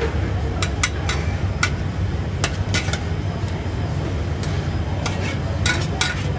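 Metal wok ladle scraping and clinking against a carbon-steel wok as fried Hokkien mee is scooped out onto plates: about ten sharp, irregular clinks. Underneath is a steady low rumble.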